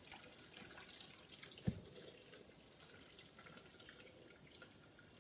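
Hot water pouring faintly from an electric kettle into a stainless-steel soup maker jug, with a single dull knock about a second and a half in.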